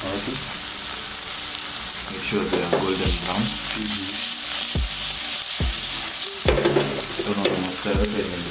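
Sliced red onions sizzling steadily in oil in a frying pan on a gas burner. The pan is shaken and tossed partway through, with a series of short low thumps about once a second.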